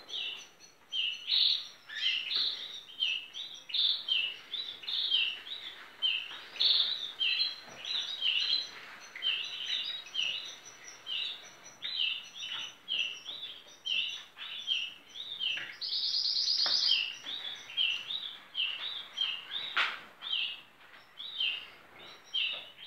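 Domestic canaries chirping in their breeding cages: short call notes repeated two or three times a second, with one rapid trill lasting about a second partway through.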